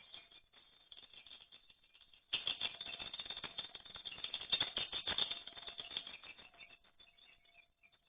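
Swiftlets making a rapid, rattling chatter of clicks and twitters. It is faint at first, grows suddenly louder about two seconds in, then fades toward the end.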